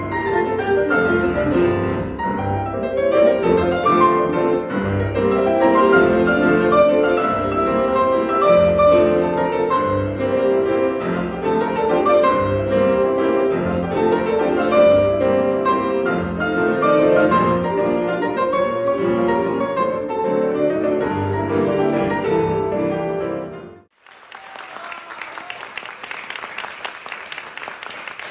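Two grand pianos playing a classical piano duet. Near the end the music stops suddenly and an audience applauds.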